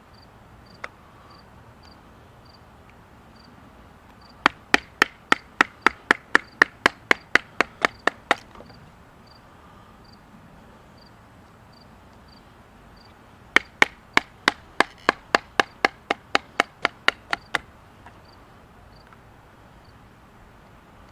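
A fully serrated Ontario Utilitac pocket knife being batoned through a stick to split it: two runs of quick, sharp wooden strikes at about four a second, each run lasting about four seconds, with a single knock about a second in. Faint, evenly spaced insect chirps go on behind.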